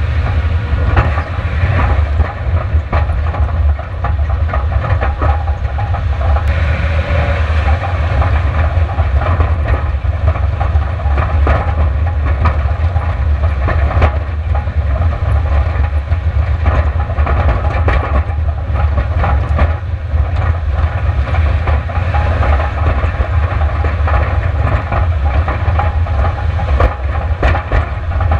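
Subaru Outback driving fast over a rough dirt and gravel race course: a steady low rumble of engine, tyres and wind, with constant rattling and many short knocks from rocks and the suspension.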